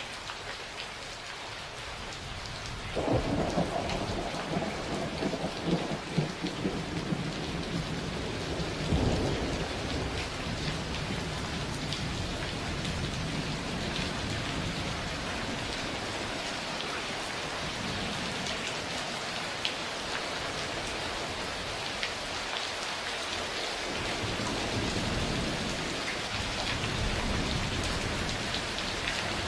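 Steady heavy rain with thunder: a rumbling thunderclap breaks in about three seconds in, crackles and surges again near nine seconds, then fades, and a softer roll of thunder swells near the end.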